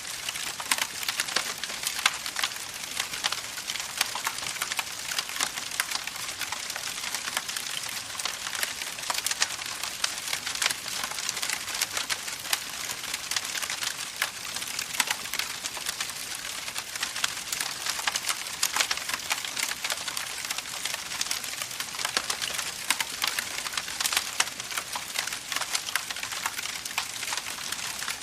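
Campfire burning with dense, continuous crackling: many small sharp pops and snaps over a steady hiss of the flames.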